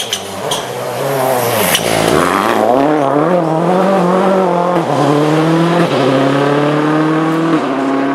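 Rally car engine coming off the throttle into a corner, then accelerating hard away, its revs climbing and breaking with upshifts about five, six and seven and a half seconds in. A few sharp clicks near the start.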